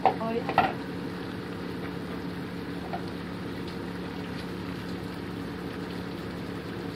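Steady low hum and hiss of a pot of meat cooking on a gas stove, with two short clinks in the first second.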